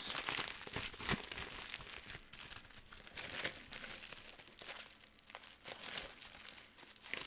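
Bubble wrap and clear packing tape crinkling and crackling in hands that are trying to unwrap a package. The crinkles come irregularly and are loudest in the first second or so.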